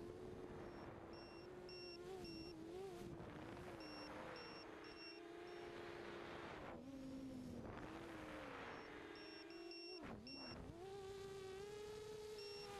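Quadcopter's brushless motors (2300kv, spinning 5x4.5 bullnose props) whining steadily as heard from the onboard camera, the pitch wavering with the throttle through rolls and dropping sharply about ten seconds in before climbing again. Short high beeps repeat in groups over the whine.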